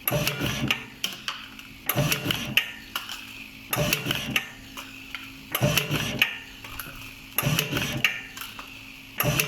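W300 tube-cutting machine cutting heat-shrink tubing in a repeating cycle: a burst of clicks and mechanical clatter about every two seconds, one per cut, over a steady low hum.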